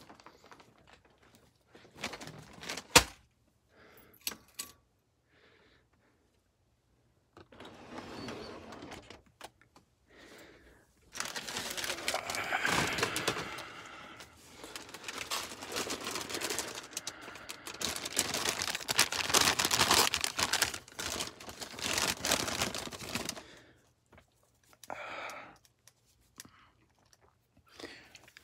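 Close handling noises: a sharp knock about three seconds in, a few small clicks and rustles, then about twelve seconds of dense crinkling and rustling from about eleven seconds in, in a small, dead-sounding closet.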